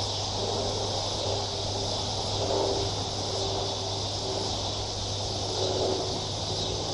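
A steady, high-pitched chorus of insects, likely crickets, buzzing without a break, over a low steady hum.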